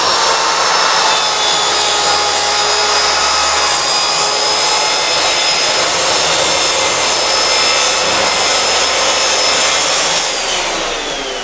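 Jemar 165 mm plunge track saw running with a steady high whine as it cuts along its guide rail through a green HMR (moisture-resistant MDF) board, with a dust extractor drawing through its hose. About ten seconds in the saw is switched off and its whine falls away as the blade spins down.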